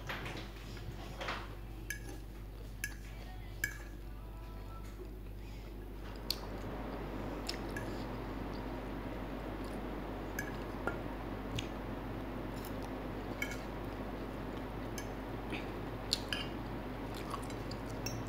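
Metal fork tapping and scraping on a patterned ceramic plate while twirling noodles, in scattered short clinks over a steady low background hum.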